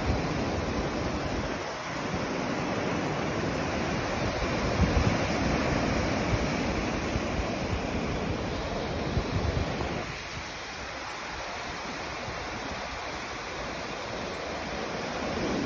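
Ocean surf washing onto a sandy beach, a steady rush that swells about four seconds in and eases off about ten seconds in, with wind buffeting the microphone.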